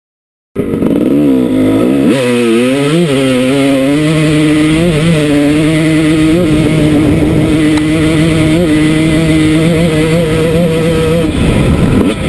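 Dirt bike engine at full throttle, cutting in about half a second in, climbing in pitch and dropping back several times as it shifts up through the gears, then holding a steady high note at top speed. The note breaks up near the end.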